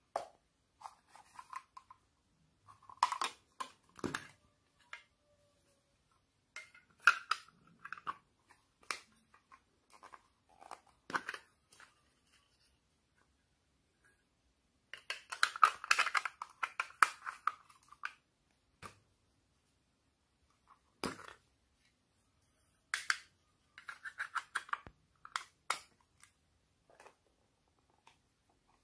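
Hard plastic toy containers being handled, clicked open and emptied into a glass dish: scattered sharp clicks and taps with short crackly rustles between them, and a denser stretch of crackling for a few seconds just past the middle.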